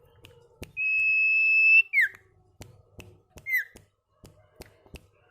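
A sirtu bird calling: one loud, steady high whistle about a second long, then two short notes that slide sharply downward. Sharp clicks run through it, the ceplekan clicking that these birds are kept for.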